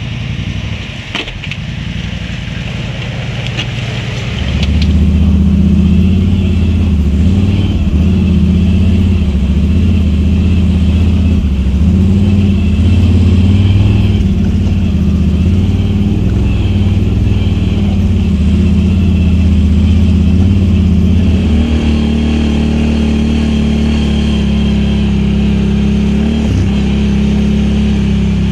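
Can-Am Outlander XMR 1000 ATV's Rotax 1000 V-twin, fitted with dual slip-on exhausts, running under way; about five seconds in the throttle opens and the engine pulls louder and steadily, its pitch changing again near the end. A few sharp clicks come in the first few seconds.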